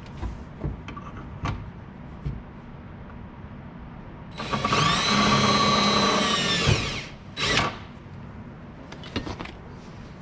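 Power drill with a 5/16-inch bit boring a push-pin hole through a plastic panel: the motor runs for nearly three seconds starting about four seconds in, then gives one short second burst. A few light clicks and knocks come before and after.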